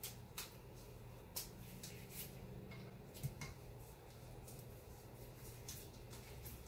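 Quiet, scattered small clicks and scrapes of hand tools: a 1/8 inch hex bit being fitted into a hand driver, then a screw being turned into a plastic gun stock.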